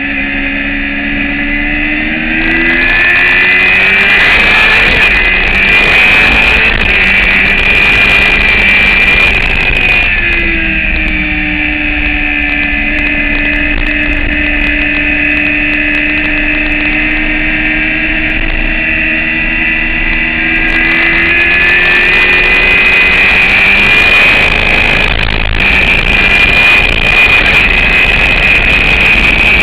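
Motorcycle engine heard on board at track speed, revving and shifting as the bike accelerates and brakes for corners, with wind noise. The pitch falls over the first couple of seconds, then a long rising pull runs through the middle before the revs drop and climb again.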